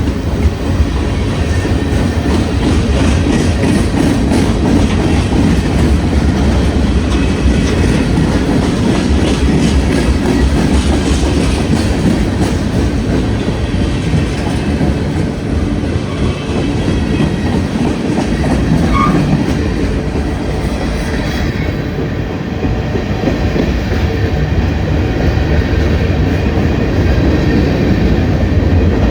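Union Pacific freight train's cars rolling past, a steady rumble of steel wheels on the rails.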